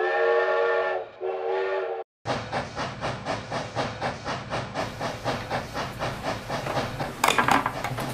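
Steam locomotive whistle blows twice, a longer blast then a shorter one, several tones sounding together. After a short gap comes the steady rhythmic chugging of a steam train running, about three beats a second, growing louder near the end.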